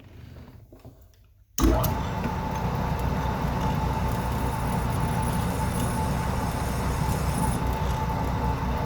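Metal lathe switching on about one and a half seconds in and running steadily, with a constant whine over a low rumble.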